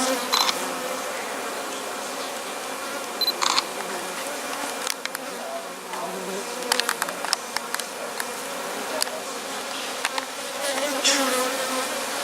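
Honeybees from an opened hive buzzing steadily in a low drone, with scattered short, sharp clicks and taps through it.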